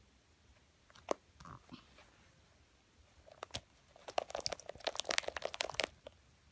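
Slime being squeezed and worked by hand, giving a single sharp click about a second in and then a fast run of small crackling pops for nearly three seconds.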